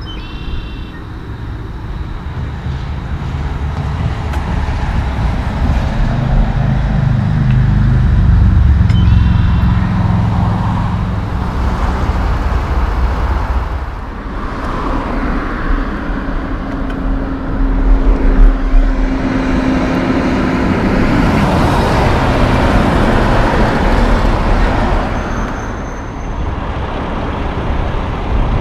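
Road traffic: cars and trucks passing on the road, their engines and tyres swelling and fading several times, with a heavy truck's engine loudest in the first ten seconds and a steady hum around the middle.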